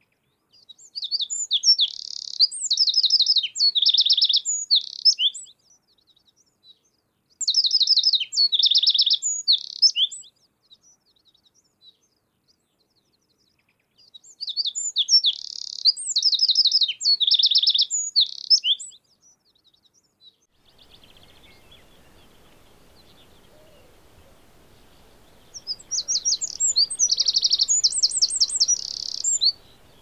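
Eurasian wren singing: four bursts of song, each several seconds long, made of fast, high trills and rattles with short pauses between them. A faint steady background hiss comes in about two-thirds of the way through.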